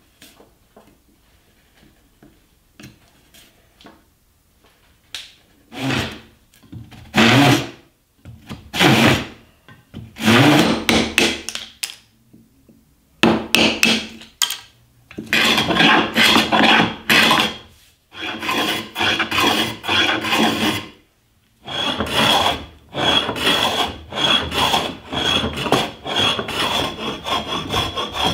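Hand tools cutting laminated oak: a few loud, separate rasping strokes, then from about halfway a fast, almost unbroken run of short strokes with a faint high ringing through them.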